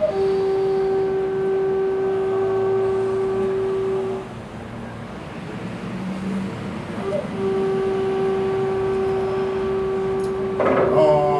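Two long, steady, horn-like notes at the same pitch, each held about four seconds, with a pause of about three seconds between them. Voices come in near the end.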